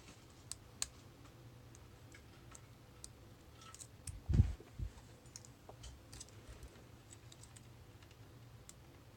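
Lock pick and tension wrench working the pins of a brass Craftsman padlock, giving faint scattered clicks. A dull double knock about four and a half seconds in is the loudest sound, from the lock or tools being bumped.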